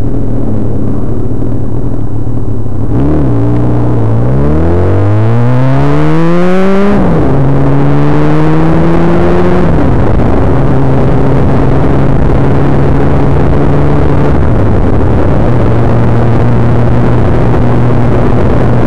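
Suzuki GSX-R1100's inline-four engine pulling away from a stop: a few seconds in it revs up, drops with an upshift, revs up again and shifts once more, then settles to a steady cruising note. A steady rush of wind runs under it.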